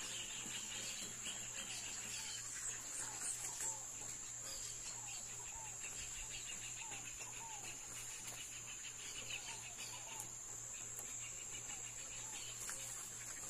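Steady high-pitched insect drone, with a bird giving short repeated chirps about once a second.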